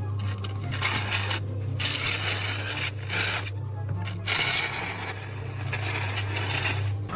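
Stretches of scraping noise lasting a second or two, with short breaks between them, over a steady low hum.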